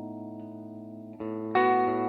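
Guitar played through effects: a held chord rings and fades, then new chords are struck about a second in and again shortly after, louder.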